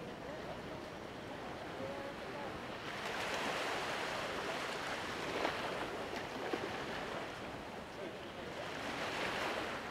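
Sea waves washing on the shore, a steady hiss that swells twice, about three seconds in and again near the end.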